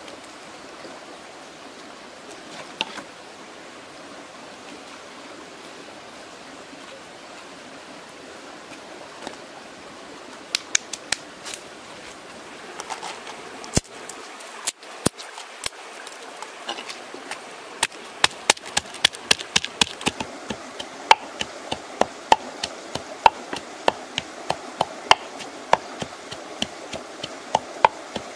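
Wooden pestle pounding red chillies in a mortar: sharp knocks about twice a second through the second half, with scattered clicks before them. A steady background hiss runs throughout.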